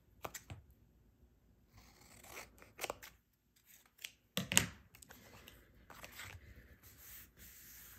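Scissors snipping through paper-covered cardstock in a few separate cuts, with paper rustling and handling in between; the loudest sound is a sharp click about halfway through.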